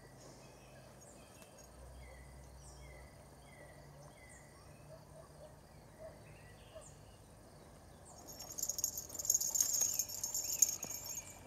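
Fishing reel being wound fast, a rapid high clicking whirr lasting about three seconds near the end, as a bite is struck and the line retrieved. Before it, faint insects and small bird chirps.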